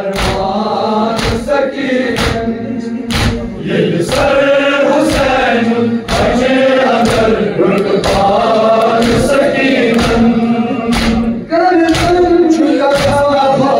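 A crowd of men chanting a Kashmiri noha in unison, with hands striking their chests (matam) together about once a second.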